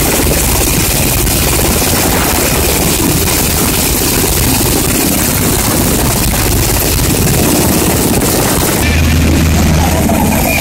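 A Black Hawk helicopter running on the ground close by, its turbines and turning rotor making a loud, steady noise. Near the end this gives way to a steady low engine hum.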